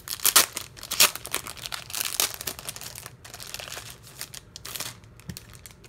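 Clear plastic sleeve around an album crinkling as it is opened and the contents are slid out: a run of sharp crackles, loudest in the first second and again about two seconds in, thinning to a few scattered clicks after about three seconds.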